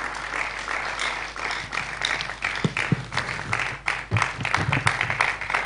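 Audience applauding, many hands clapping without a break.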